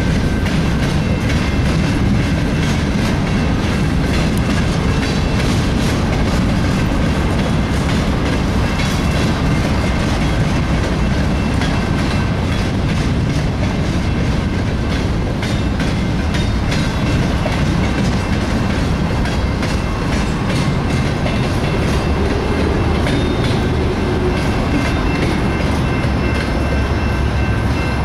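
Freight train's open-top hopper cars rolling steadily past, wheels rumbling and clicking over the rail joints, until the last car goes by at the end.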